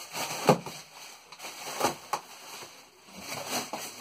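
Plastic packaging wrap rustling and crinkling as it is handled around a boxed planer in its styrofoam insert, with a couple of sharper knocks about half a second and two seconds in.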